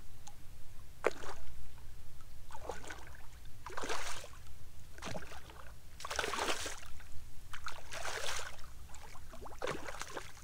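A hooked redfish thrashing at the surface beside the boat while it fights the line: a series of short splashes every second or two. A steady low rumble lies beneath.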